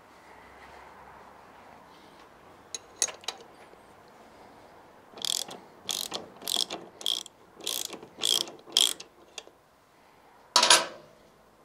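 Socket ratchet wrench with a 13 mm socket loosening the lower mounting bolt of a Vespa GTS300's rear shock absorber: about eight quick ratcheting strokes in a row, roughly two a second, with a single louder clank of metal near the end.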